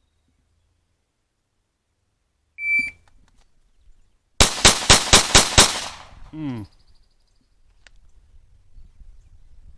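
A shot-timer app beeps once, and under two seconds later a pistol fires six rapid shots in little over a second: a Bill Drill drawn from concealment.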